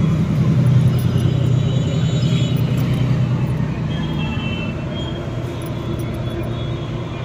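A motor vehicle's engine running with a steady low hum that gradually fades away, over general street noise.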